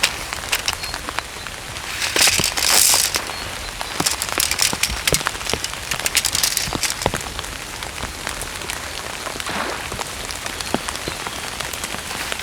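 Heavy rain falling, a steady hiss of rain with many scattered sharp drop ticks, and a louder rush of noise about two seconds in.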